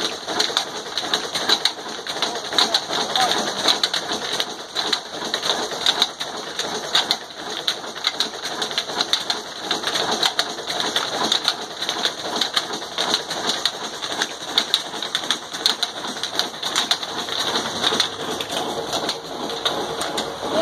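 Dense, continuous chatter of many small birds calling at once, with a steady rushing noise underneath.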